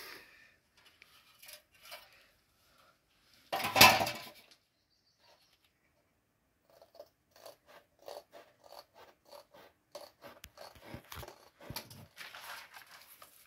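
Hand work on a cardboard template: a short loud rustle about four seconds in, then from about seven seconds a run of short scratchy strokes, several a second.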